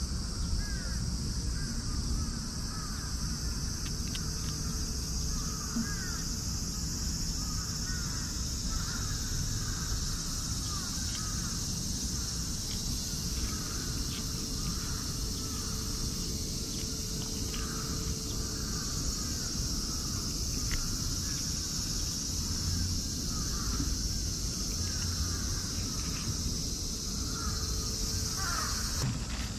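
Outdoor ambience: birds calling over and over in short sweeping calls, over a steady high hiss and a constant low rumble.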